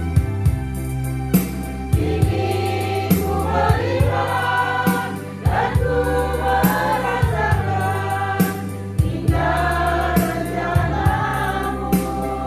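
A congregation singing a Christian praise song together, over an accompaniment with a steady bass line and a regular beat.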